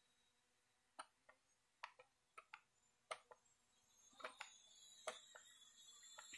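Near silence broken by a dozen or so sharp, irregular clicks. From about four seconds in, the faint high buzz of a small quadcopter drone's motors grows louder as it approaches.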